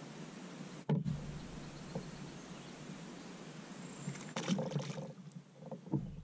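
A small fish being landed and handled aboard a fishing kayak: a knock about a second in, then a quick cluster of clicks and rattles around four and a half seconds in, over a steady outdoor hush.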